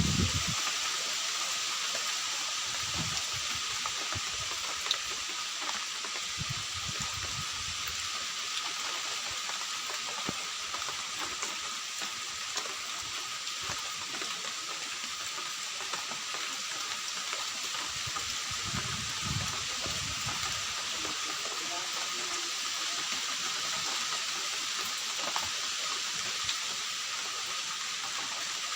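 Steady rain falling, an even hiss with a few brief low rumbles.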